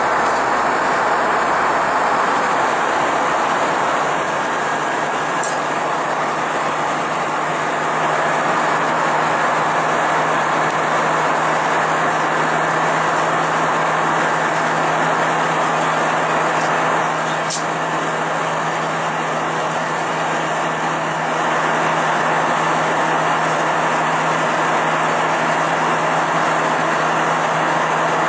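Steady cabin noise of an Airbus A320 in flight, powered by IAE V2527-A5 engines, heard from a window seat: an even rush of air with a steady low hum underneath. Two faint clicks sound, about five seconds in and again past the middle.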